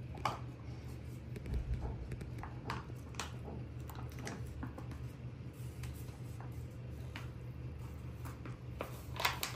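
Spoonfuls of thick mango custard being dropped into clear plastic cups: soft wet squishes and a few light clicks of the spoon against the cups and pan, over a steady low hum.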